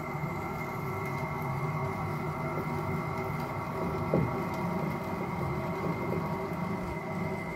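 FABTEC SK 4016 electric tapping machine running steadily as its tap cuts an M14×2 thread into a steel bushing, with one brief louder sound about four seconds in.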